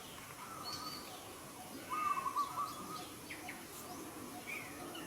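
Wild birds calling: one clear, wavering call of under a second about two seconds in, with a few short, higher chirps scattered around it, over steady outdoor background noise.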